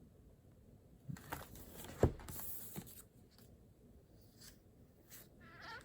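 Small handling noises at a desk: a few clicks about a second in, a sharp knock about two seconds in, then a short rustle like paper being handled, and a few faint ticks.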